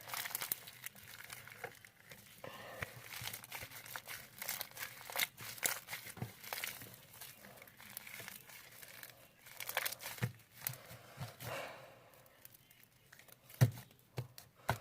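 Sticky homemade glue slime being kneaded and pulled by hand, giving irregular crackling, tearing and popping clicks as it sticks and pulls away, with a sharp knock near the end.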